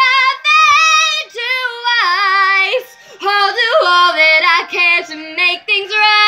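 A girl singing a show tune solo with no accompaniment, holding several long notes with vibrato and breaking briefly between phrases.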